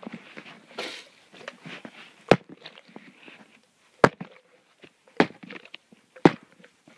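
Handling noise close to a phone's microphone: rustling and rubbing, with four sharp knocks about a second apart from the second second on.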